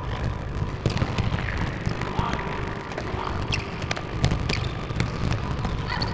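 Sneakers squeaking and feet slapping on an indoor sports-court floor as players run and cut: scattered short squeaks and sharp knocks over a steady low hum.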